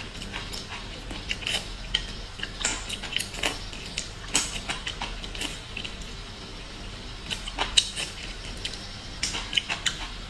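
Small sea snail shells clicking and clinking as they are handled and eaten, in scattered clusters of sharp clicks.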